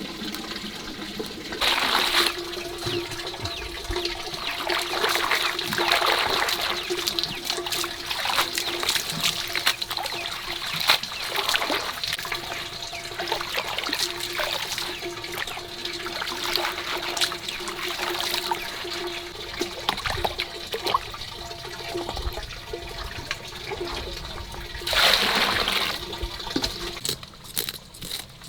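Water trickling and splashing steadily, with two louder surges, about two seconds in and near the end.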